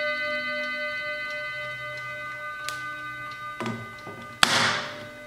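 Chime of a 1960s Hermle mantel clock ringing out and slowly fading after a strike, with the clock movement ticking. About four and a half seconds in, a sharp loud snap as the glass dial door is shut, after a few small knocks.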